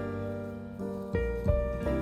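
Background music: gentle piano-led instrumental with a deep bass line, new notes struck about every half second.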